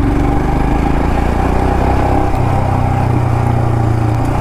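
Royal Enfield Himalayan Scram 411's single-cylinder engine running steadily at low revs while the bike is ridden over rough off-road ground.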